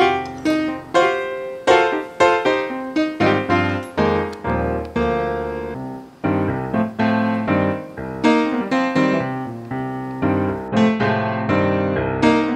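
Background piano music, a melody of struck notes with chords beneath.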